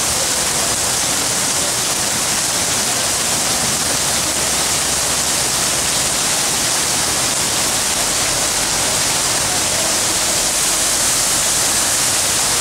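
Heavy rain pouring down steadily onto a flooded street, a constant loud hiss.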